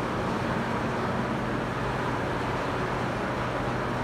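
Steady ventilation hum and air rush below decks, with a low, even drone.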